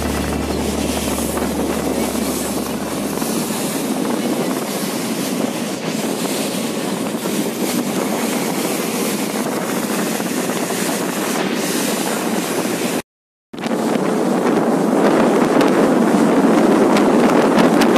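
Motorboat under way at speed: wind buffeting the microphone and water rushing along the hull, a steady loud rush. It cuts out for about half a second roughly three quarters of the way through.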